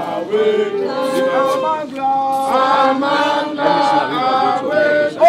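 A group of protesters singing a chant-like protest song together without accompaniment, holding long notes between short phrases.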